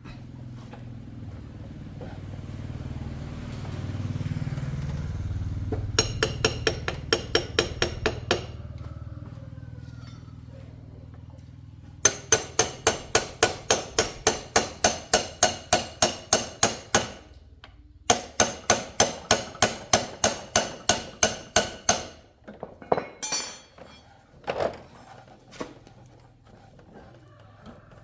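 Rapid hammer blows on metal in three runs of about four to five ringing strikes a second, over a low steady hum in the first part, then a few scattered knocks near the end.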